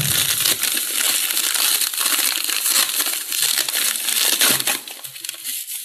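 Plastic bubble wrap crinkling and crackling without a break as hands pull it off a small package, easing off near the end.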